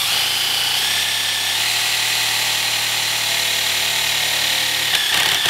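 Cordless drill running steadily with an 8-gauge tap and countersink bit, cutting a countersunk set-screw hole into a plastic climbing hold. The motor's whine shifts slightly about a second and a half in.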